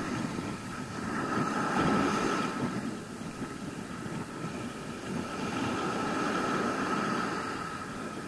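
Ocean surf washing onto a sandy beach, with wind on the microphone; the noise swells twice, once early and again in the second half.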